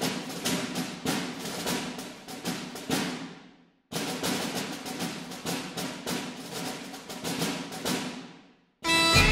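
Background music: a run of steady drum strikes that fades away, starts again and fades once more. Near the end, bagpipes come in over a drone.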